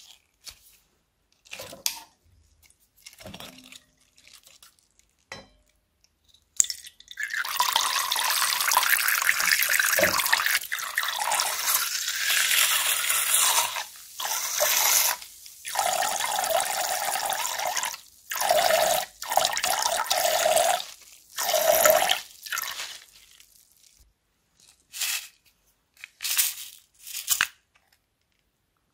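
Liquid squeezed out of a water squishy bag and running into a bowl in long streams with short breaks for about fifteen seconds, after a few short crinkles of the plastic bag.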